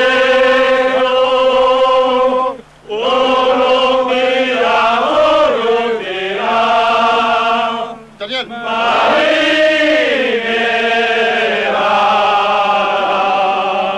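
A group of men singing a song together in unison, in long held notes. The phrases break briefly for breath about three seconds and eight seconds in.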